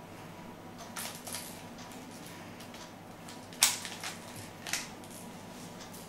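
Faces of a plastic 3x3 Rubik's cube being twisted by hand: a few scattered clicks and clacks, the sharpest a little past halfway.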